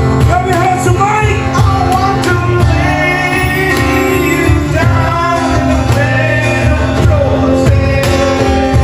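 Rock song with a singer's held, gliding vocal lines over a full band.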